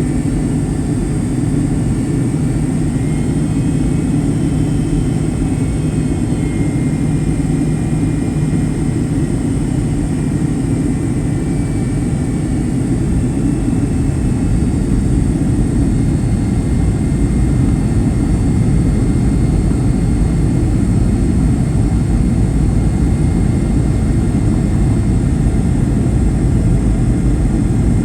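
Boeing 757-200 cabin noise heard from a forward passenger seat: a steady roar of engines and airflow, with a faint high whine over it. It grows slightly louder about halfway through.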